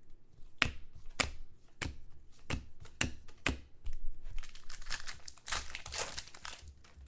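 Football trading cards being handled: a card pack wrapper crinkling and tearing, with sharp clicks about twice a second as the cards are flicked through one by one.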